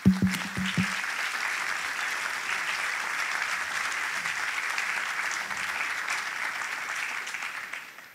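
Audience applauding in an auditorium, starting abruptly and going on steadily for about eight seconds before dying away near the end. A brief low hum with a few knocks sounds in the first second.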